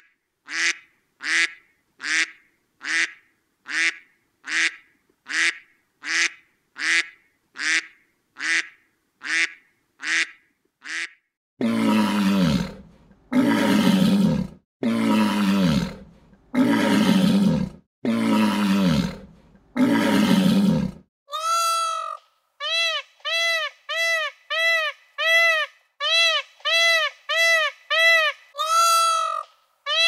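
Animal calls in three runs: about twenty short, evenly spaced calls at roughly two a second, then five long, noisy calls of about a second each, then quick pitched calls that rise and fall, again about two a second.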